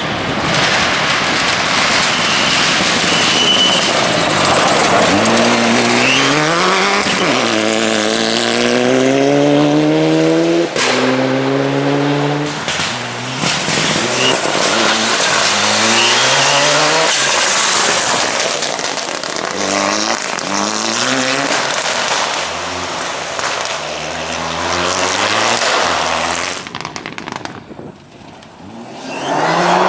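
Mitsubishi Lancer Evo rally car's turbocharged four-cylinder engine at full throttle, pulling up through the gears with a rising pitch in each gear and a short break at every shift, with anti-lag pops. The sound fades out briefly near the end, then comes back.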